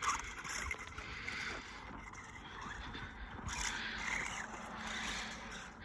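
Mini Revo RC truck running through snow on paddle tires: a hissing, scraping churn of snow with a faint steady electric-motor hum joining about halfway through.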